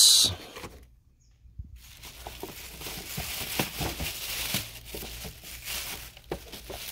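Rustling and crinkling of plastic bag and packaging being handled, with small knocks and clicks, starting about two seconds in.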